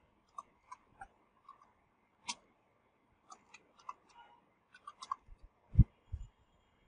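Slow, irregular clicks of computer keyboard keys as a word is typed, with one louder thump near the end.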